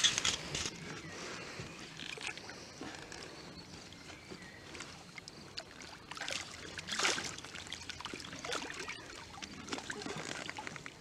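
Water splashing and trickling in irregular bursts, with a louder splash about seven seconds in.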